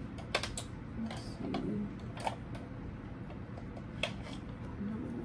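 A few sharp, separate clicks and clacks of makeup items and containers being picked up and set down on a vanity.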